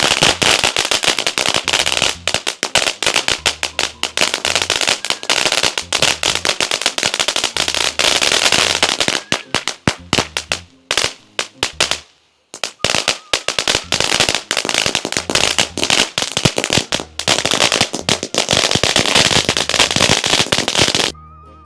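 Fireworks crackling: a dense run of rapid, sharp bangs that pauses briefly about twelve seconds in, then carries on.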